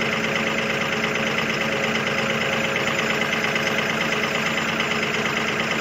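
2005 Ford 6.0 Powerstroke turbo-diesel V8 idling steadily at the tailpipe as it warms up after a cold start.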